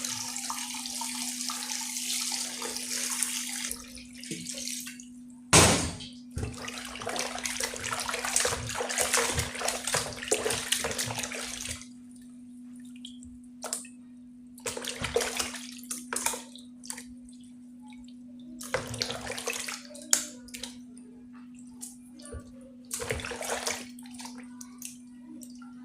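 Kitchen tap water running into a sink over raw chicken being rinsed, splashing as it goes. The water runs for about the first twelve seconds, with a sharp knock about five seconds in, then comes in short spells with pauses between. A steady low hum sits underneath throughout.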